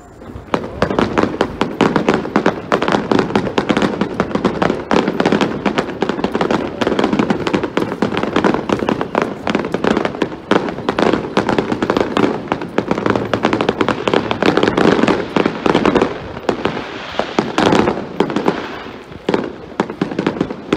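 Fireworks display starting suddenly about half a second in: a dense, unbroken barrage of rapid bangs and crackles from rising spark columns and bursts fired low over the water.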